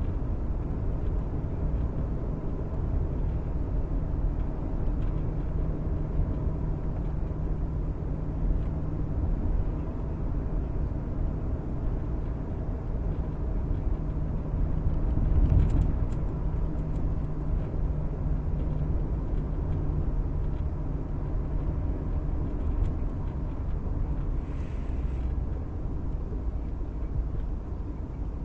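Inside a moving car: steady low rumble of the engine and tyres on the road, briefly louder about halfway through.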